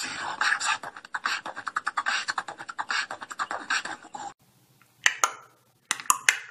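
Fast crunching, clicking chewing sounds of a chipmunk eating, many strokes a second, cutting off suddenly about four seconds in. After a brief gap, a few sharp separate clicks follow near the end.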